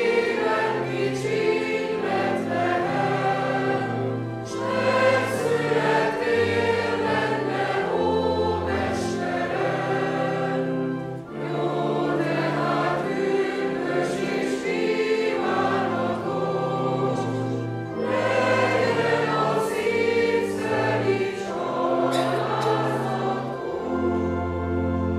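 Many voices singing a Christmas hymn together in Hungarian, moving through slow held chords and arriving at a long final chord near the end.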